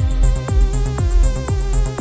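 Electronic dance track programmed in Native Instruments Maschine: a steady four-on-the-floor kick drum about two beats a second under quick hi-hats and sustained synth chords.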